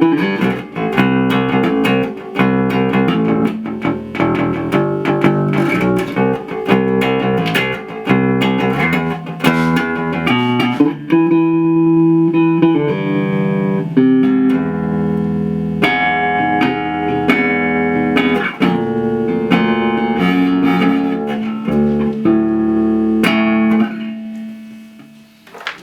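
Plucked string instrument playing: a quick run of picked notes, then slower, longer-held notes, fading out near the end.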